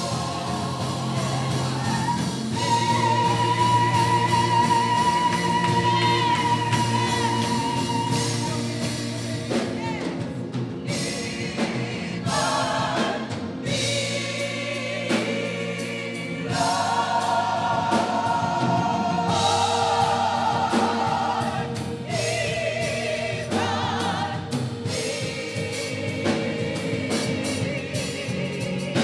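Gospel choir singing, with long held notes.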